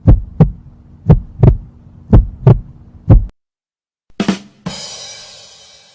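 Heartbeat sound effect: paired lub-dub thumps about once a second over a faint low drone, four beats, stopping about three seconds in. A short hit follows, then a bright ringing tone that fades away.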